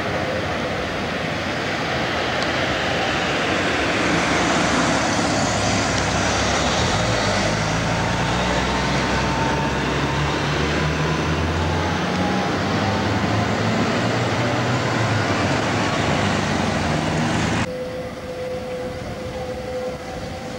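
An articulated tram passing along street track: rolling noise over a steady low motor hum, mixed with car traffic. Near the end the sound cuts abruptly to a quieter background.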